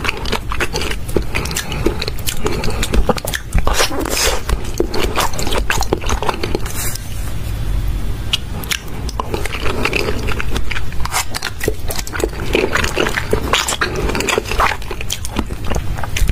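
A person chewing and biting raw seafood, oyster and salmon sashimi, with many small sharp mouth clicks at an irregular pace.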